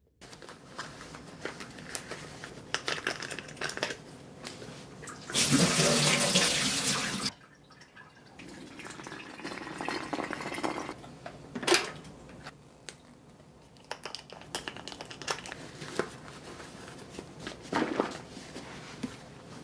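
Hot water poured from an electric kettle into a hot-water bottle, with a loud rush of water lasting about two seconds shortly before. Knocks and handling sounds come in between, with a sharp knock about midway and another near the end.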